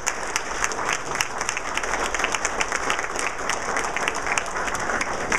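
A room full of people applauding: dense, steady clapping that cuts off suddenly at the very end.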